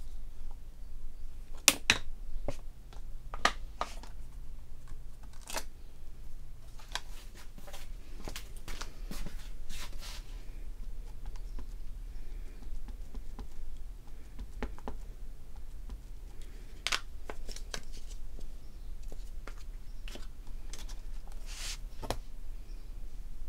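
Scattered light clicks, taps and rustles of hand-stamping tools being handled: a stamp press, clear acrylic stamps and an ink pad dabbed onto a stamp. The taps come in irregular clusters, busiest about eight to ten seconds in.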